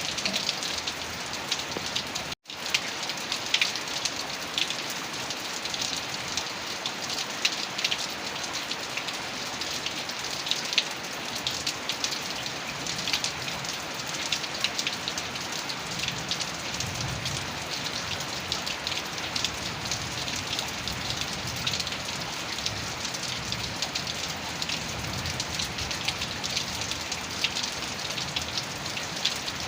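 Heavy rain falling steadily on a surface, with many individual drops ticking sharply. The sound cuts out for an instant about two and a half seconds in, and a low rumble joins in the second half.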